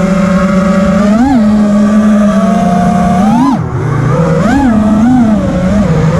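FPV freestyle quadcopter's four brushless motors (Rotor Riot Hypetrain 2306 2450kv) spinning 5-inch three-blade props in flight, a steady whine that rises in pitch with short throttle punches: once about a second in, once around three and a half seconds with a quick drop just after, and twice more near the end.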